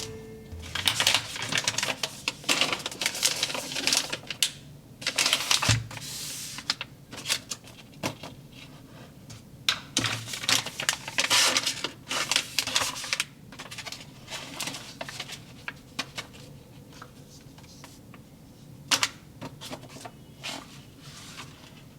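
Plastic toy packaging and small plastic pieces being handled: quick clicks, taps and crinkles in busy clusters over the first half, thinning out later, with one sharp click near the end.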